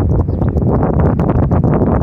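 Strong wind buffeting the microphone: a loud, deep rumble with irregular pops and crackles.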